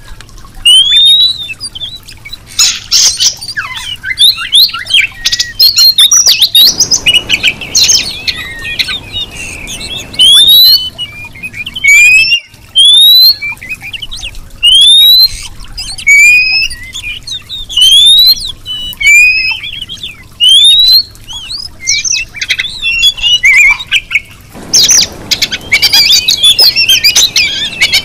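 Female Oriental magpie-robin whistling, the call a female uses to draw a male. The whistles are short and upslurred, repeated about once a second, with bursts of fast chattering song in between.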